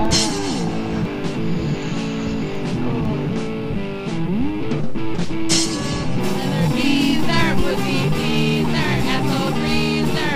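Punk rock band playing an instrumental break, with electric guitar over a drum kit.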